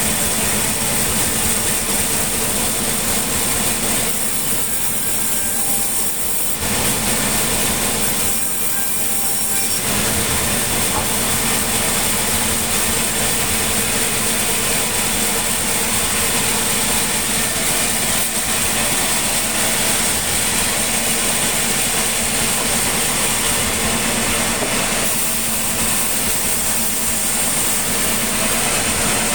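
Sawmill machinery running steadily: an engine drone with a constant high hiss over it. The hiss drops away briefly a few seconds in, again just before ten seconds, and near the end.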